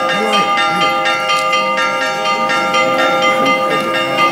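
Several church bells rung in quick succession, about three strikes a second, their tones overlapping and ringing on between strikes: the bells rung for an Orthodox icon procession. Faint voices underneath near the start.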